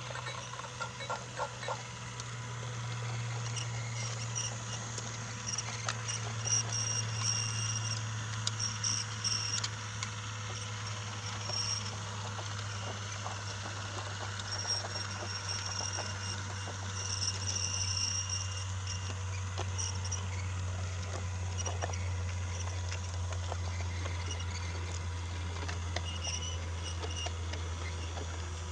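Brio toy train running along wooden track: a steady motor hum that slowly drops in pitch, with scattered light clicks and faint high squeaks.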